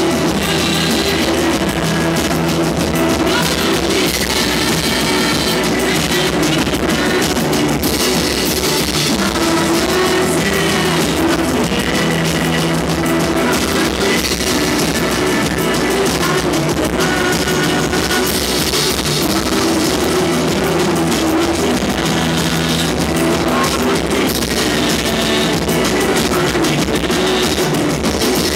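A live band playing loud rock music: drum kit and hand drums over held low tones, running steadily throughout.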